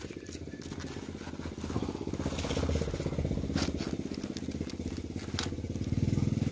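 A small engine running steadily with a fast, even putter, getting louder about two seconds in and again near the end. A few sharp crackles come over it.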